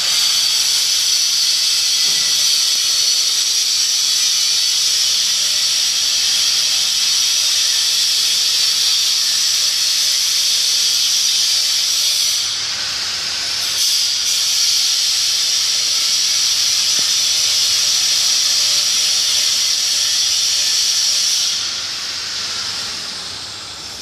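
Steady, loud hiss, strongest in the upper range. It dips briefly about halfway through and fades away over the last couple of seconds.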